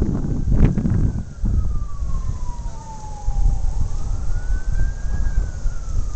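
Distant siren wailing in one slow glide, falling, rising again about four seconds in, then falling once more. It sounds over heavy wind buffeting the microphone, which is the loudest sound.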